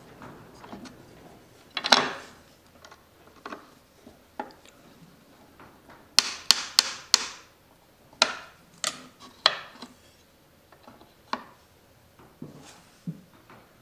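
Scattered clicks and knocks of metal on wood: a thin metal key working the adjusting screws of a wooden miter bar seated in a table saw's miter slot. There is a louder knock about two seconds in and a quick run of sharp clicks about six seconds in.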